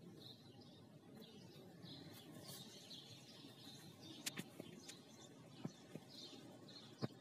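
Faint birdsong: small birds chirping on and off, with a few short clicks in the second half.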